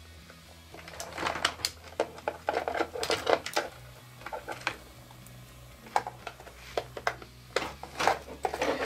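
Irregular clicking, tapping and rustling of plastic parts and wires being handled: cable bundles are threaded through a black plastic toothed turret ring. The handling comes in two busy stretches, over a faint low steady hum.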